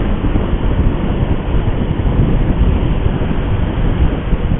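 Steady wind rush and road noise from a moving motorcycle, with the engine's low rumble underneath.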